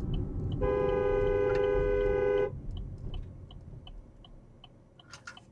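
A car horn blows one steady blast of about two seconds, two notes sounding together, over the car's road rumble. A turn signal ticks about three times a second, and the road rumble fades as the car slows.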